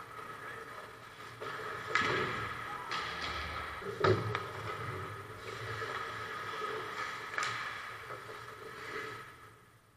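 Ice hockey play around the goal: skates scraping on the ice and sticks clattering over a steady hum, with two sharp knocks about two and four seconds in.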